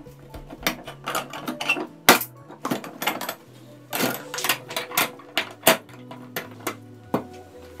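Steel parts of an antique trap, its jaws, frames and springs, clicking and clanking against each other and the metal bench as it is handled and reassembled. An irregular run of sharp metal clicks, the loudest about two seconds in.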